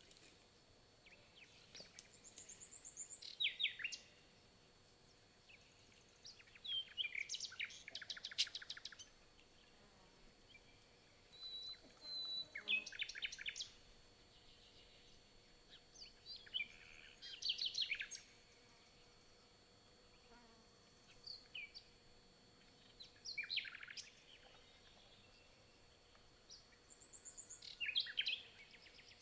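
A small songbird singing faintly, short phrases of quick high notes repeated every few seconds, about seven phrases in all.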